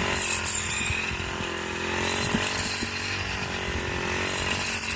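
Small engine of a hand-guided walk-behind wheat reaper running steadily as it cuts, with a few light clicks.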